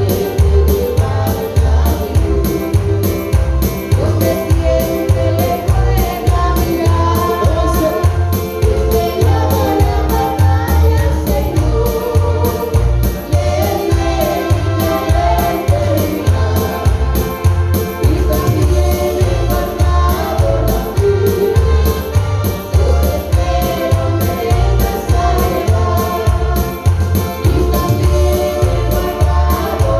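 Gospel worship song: voices singing a melody over music with a steady bass beat.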